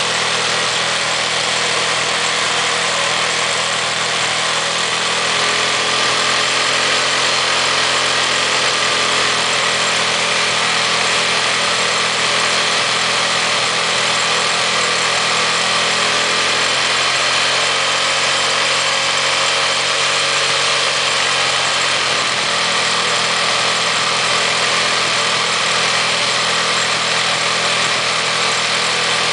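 KYMCO motorcycle engine idling steadily, heard at the exhaust muffler, its speed wavering slightly a few times.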